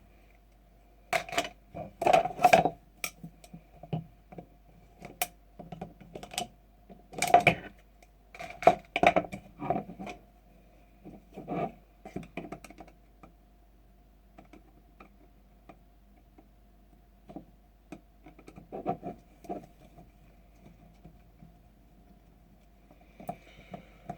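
Irregular clicks, clacks and knocks of an airsoft rifle's metal and plastic parts being pulled apart and set down, loudest in clusters about two seconds in and again around seven to ten seconds in, sparser later, over a faint steady hum.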